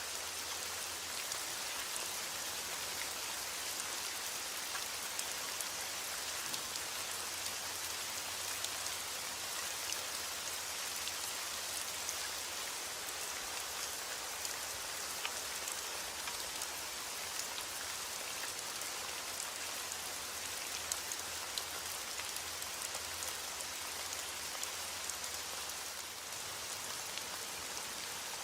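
Steady heavy rain falling, a continuous even hiss dotted with the patter of individual drops hitting a surface.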